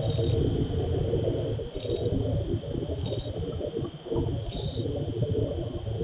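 Steady low rumble and hiss picked up by a CCTV camera's built-in microphone, with a few faint, brief high chirps.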